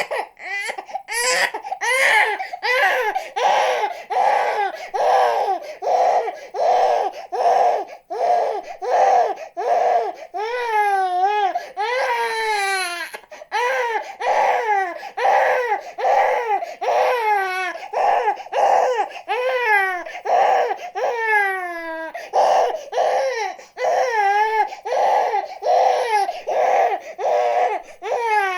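Infant crying without pause: rapid short wails about two a second, with a few longer cries that fall in pitch.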